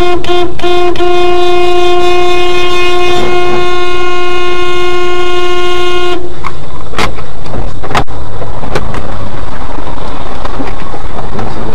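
Car horn honking: a few quick toots, then one long loud blast of a single steady note lasting about six seconds. After it stops comes a noisy traffic rumble broken by several sharp clicks.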